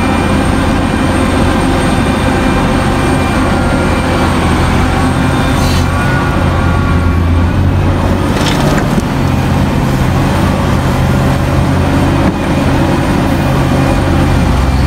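Liebherr 984 hydraulic mining excavator's diesel engine running steadily under load as it digs and swings, with two brief noisy swells about six and eight and a half seconds in.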